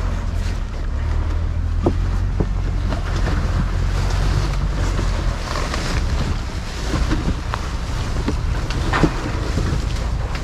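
Wind buffeting the microphone, a steady low rumble, with a few scattered light knocks, the clearest about two seconds in and near the end.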